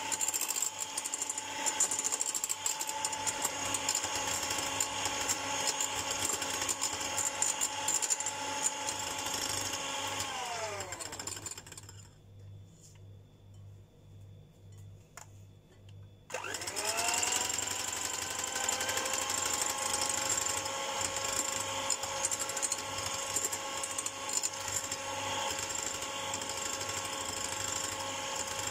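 Electric hand mixer whipping egg whites into meringue, its motor running steadily. About ten seconds in it is switched off and winds down with a falling pitch. After a few seconds of quiet it is switched on again, its pitch rising quickly and settling back to a steady run.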